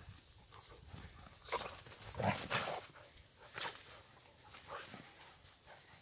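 Two Jindo dogs play-fighting, giving a few short growls and snarls, the loudest a little over two seconds in.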